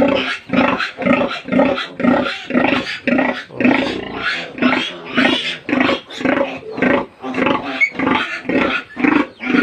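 A sow grunting rhythmically and loudly, about two to three grunts a second in an even, unbroken series: the grunting a sow keeps up while her litter suckles.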